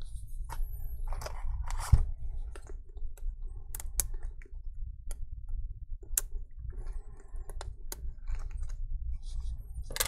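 Small scattered clicks and light rustling of fingers unclipping and lifting the Wi-Fi antenna cables and small connectors off a MacBook Air logic board, with one sharper click about two seconds in.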